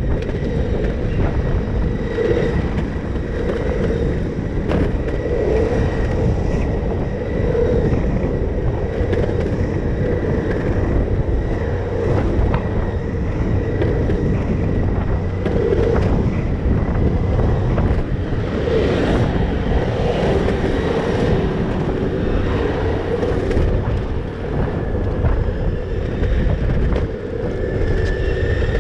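Electric skateboard riding fast over pavement: steady rumble of the wheels and wind buffeting the microphone, with a thin motor whine above it and an occasional click from bumps in the surface.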